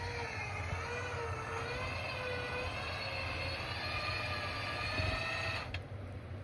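Winch on the Toyota Tacoma's front bumper whining steadily under load as it hauls the truck through deep snow, over a low rumble; the whine wavers a little in pitch and cuts off shortly before the end.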